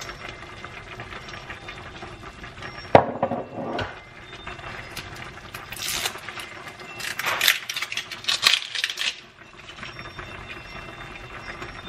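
Pork simmering in liquid in a stainless steel pan, a steady low bubbling hiss. A sharp knock comes about three seconds in, then a run of clinks and short hissing bursts from about six to nine seconds as sauce bottles are handled over the pan.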